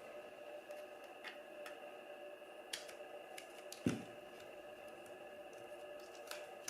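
Faint, scattered clicks and taps of a plastic ASG Scorpion Evo 3 airsoft magazine being handled as its small retaining pin is worked out, with one louder knock about four seconds in. A faint steady hum runs underneath.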